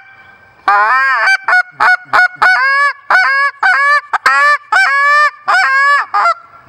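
Short-reed Canada goose call blown by mouth: one longer honk, then a quick run of clucks and a string of honks, two to three a second, each note breaking sharply up in pitch.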